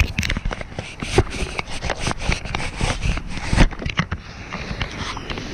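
Handling noise on the camera's microphone: a close, busy run of knocks, scrapes and rubbing for about four seconds, easing off near the end.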